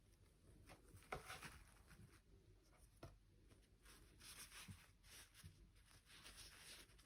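Faint handling noises: a few light clicks and brief soft rustling and scraping, loudest about a second in and again around four to six seconds.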